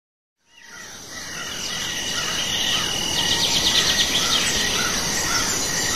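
Outdoor nature ambience: insects chirping steadily, with a bird calling over them again and again. It fades in about half a second in.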